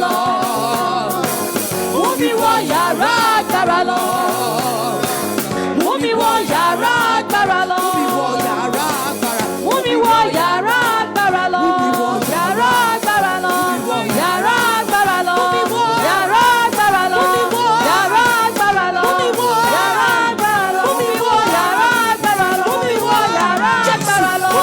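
Gospel praise music: singing voices with band accompaniment, continuing a repeated Yoruba prayer chorus.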